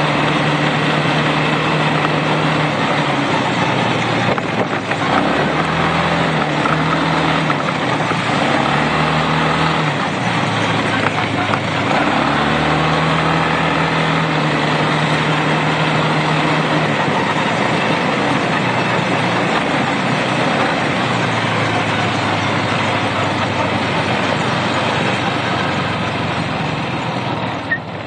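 Quad bike (ATV) engine running on the move, its note rising and falling several times as the throttle opens and closes. A loud, steady rushing of wind and road noise lies over it and eases slightly near the end.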